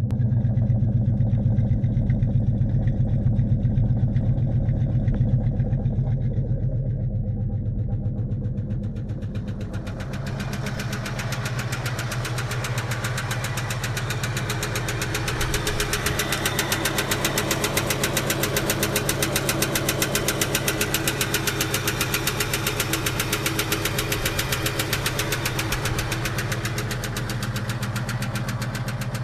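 1970 Dodge Charger's 318 V8 running at idle with an abnormal rapid, even knock or tapping, a bad sound whose cause the owner cannot find. From about ten seconds in, the tapping comes through much more sharply over the low engine rumble.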